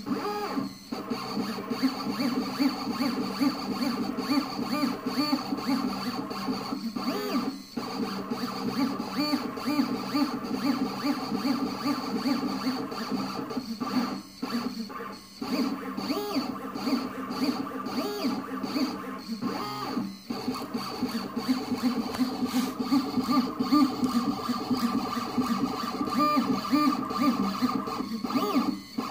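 Shapeoko 3 CNC's stepper motors whining in several steady pitched tones as the gantry drives a taped-on marker back and forth to hatch-fill lettering, with the marker scratching on the paper. The tones change pitch with the moves and drop out briefly a handful of times between strokes.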